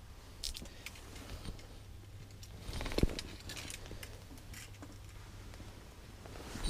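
Faint clicks, taps and rustling from handling gear close to the microphone, with one louder knock about three seconds in, over a low steady hum.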